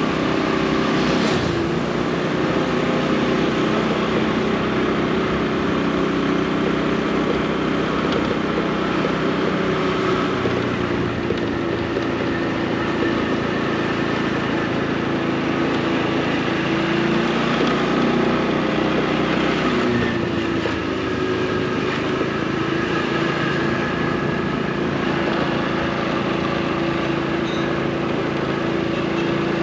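Motorcycle engine running steadily at low speed, its pitch drifting slightly, over street traffic noise.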